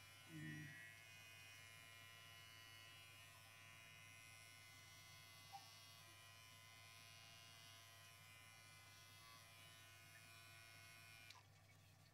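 Electric pet hair clippers buzzing faintly and steadily while clipping a Persian cat's fur; the buzz stops about eleven seconds in, followed by a few light clicks.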